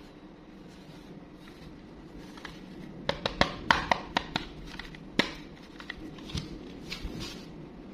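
Sharp clicks and taps of a hard plastic toy train being handled and turned over in gloved hands, a quick run of them about three seconds in and a few scattered ones after. Faint low hum underneath.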